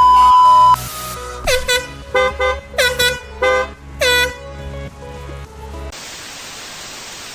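Air horn: a loud steady blast that stops within the first second, then a quick run of six or seven short blasts, each sliding down in pitch as it starts. A steady static-like hiss follows for the last second or so.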